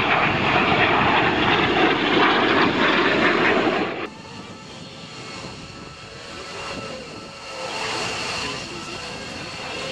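Jet engine noise of a SOKO G-2 Galeb jet trainer flying past, from its single Rolls-Royce Viper turbojet. It is loud and rushing for about four seconds, then cuts off suddenly to a fainter, more distant jet sound with a thin steady whine that swells a little near the end.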